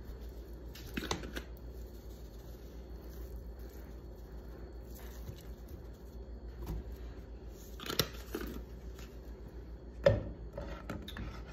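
Handling noises from shaking seasoning onto pork steaks: soft rustling from a plastic shaker and a plastic container, with sharp clicks about a second in, around eight seconds in and near the end. A steady low hum lies under it.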